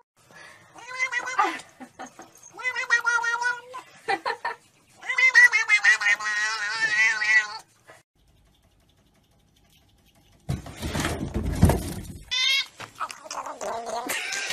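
A cat yowling three times, the third a long, wavering yowl, at another cat as a warning. After a pause there are about two seconds of rustling, rumbling noise, then a short cat cry.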